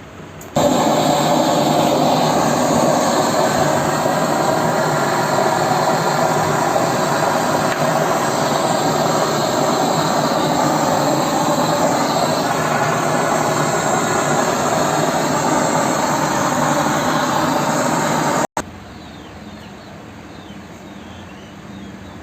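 R134a refrigerant gas hissing loudly and steadily through the charging line. It starts suddenly about half a second in and cuts off suddenly near the end.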